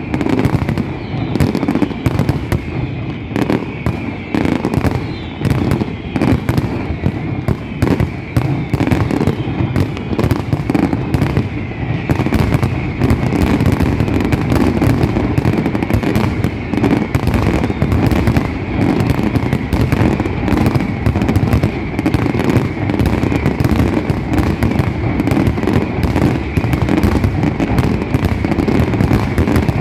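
Fireworks going off in a dense, continuous barrage of rapid bangs that grows thicker and louder about halfway through.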